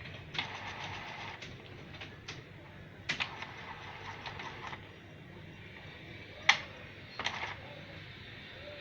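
Epson inkjet printer's mechanism running in short spells of rapid rattling clicks, followed by two sharp clicks in the second half.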